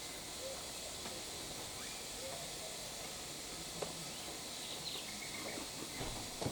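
Quiet outdoor ambience: a steady hiss with a few faint high chirps and a small click just under four seconds in.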